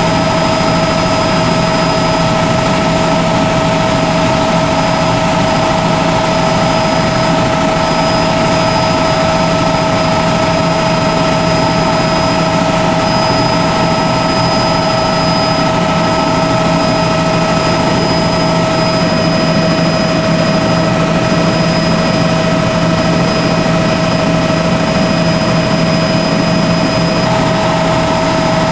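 Steady, loud engine noise of a small aircraft in flight, heard from inside the cabin, with an even hum that does not change.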